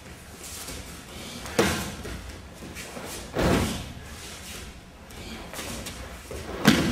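Aikido practitioners taking breakfalls: bodies landing with a slap and thud on the dojo mats three times, about two seconds apart, the last near the end the loudest.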